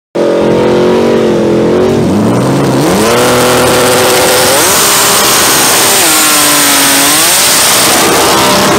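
X275 import drag car's engine revving hard, its pitch dropping and climbing again several times. From about three seconds in, a loud hiss of spinning tyres runs under it, as in a burnout.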